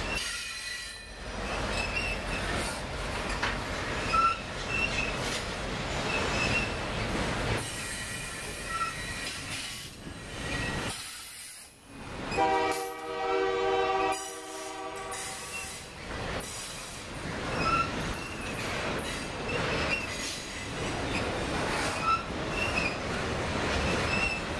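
Double-stack intermodal container cars of a freight train rolling past, with steady wheel-on-rail noise and short high squeaks recurring as the cars go by. Midway through, a horn chord sounds for about two seconds.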